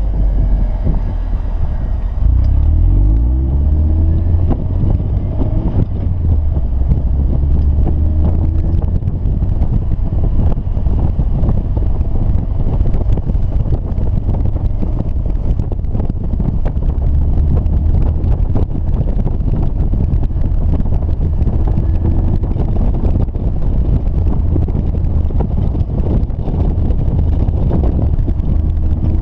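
Roadster's engine and wind heard from inside the open cockpit while it is driven hard around a cone course. The engine note rises and falls with throttle over heavy, steady wind rumble on the microphone.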